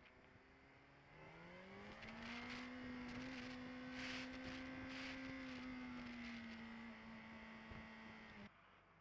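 Motorcycle engine accelerating, its pitch rising over about a second, then holding a steady speed, with gusts of wind noise on the microphone. The sound cuts off suddenly near the end.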